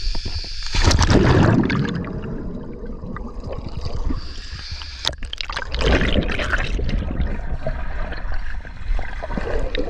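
Pool water splashing and gurgling around a camera as it plunges under the surface, then muffled underwater sloshing and bubbling. The loudest splash comes about a second in, with another surge around six seconds.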